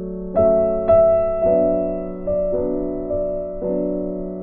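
Background piano music: notes struck about every half second over held chords, each fading after it is played.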